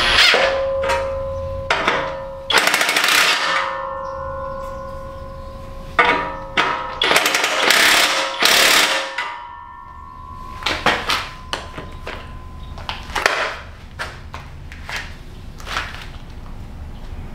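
Impact wrench running in a string of short bursts of rapid hammering, the bolts on the turbo exhaust being run down. A steady metallic ring hangs on through the first half.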